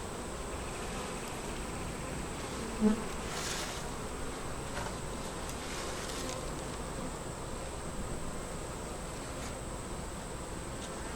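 Honey bees buzzing steadily in a crowd, with a single brief knock about three seconds in.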